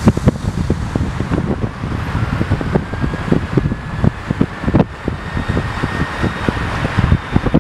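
A moving car's road and wind noise, with irregular low thumps of wind buffeting the microphone and a faint whine rising slowly in pitch through the middle.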